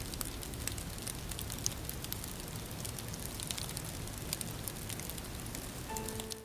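Steady crackling, hissing noise, a sound effect for a body disintegrating into drifting flakes and ash. A soft piano note comes in near the end.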